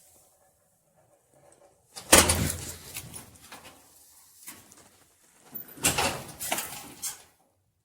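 Two bouts of clunking and rattling, each opening with a thump, about two seconds in and again near six seconds, as the car's trunk is worked.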